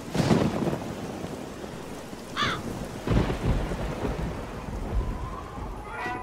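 Thunderstorm: steady rain with rolls of thunder near the start and again about three seconds in, and a single crow caw about two and a half seconds in. Music begins just before the end.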